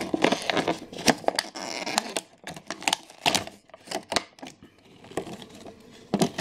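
Small metal scissors snipping wire twist ties, with the clear plastic packaging tray crinkling and clicking as it is handled. There is a dense run of rustling and sharp clicks for about the first two and a half seconds, then scattered single clicks.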